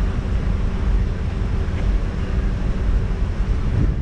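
Steady low wind rumble on a roof-mounted camera's microphone, over road and traffic noise from cars creeping along in slow traffic.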